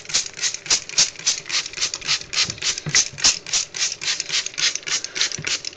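A steady, rapid rhythmic rasping, about five or six short strokes a second, like a ratchet or rattle.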